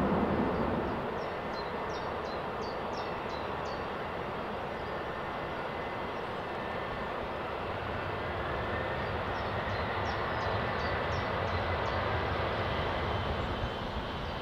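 Jet airliner engines, a steady broad rushing noise with a faint high whine. The louder noise eases off over the first second or two, and a few faint high chirps come through now and then.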